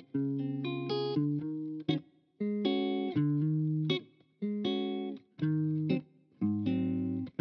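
Guitar music: plucked notes and chords in short phrases, each ringing for about a second, with brief pauses between them.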